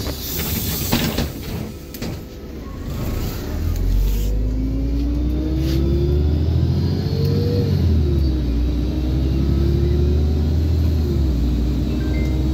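LiAZ-5292 city bus heard from inside the cabin, pulling away after a few knocks: a deep engine rumble sets in, and a whine climbs with speed, dropping suddenly twice as the gearbox shifts up.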